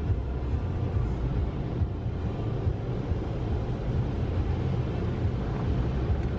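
Automatic tunnel car wash heard from inside the car: a steady low rumble of the wash machinery, with water and soapy spray and spinning brushes washing over the windshield.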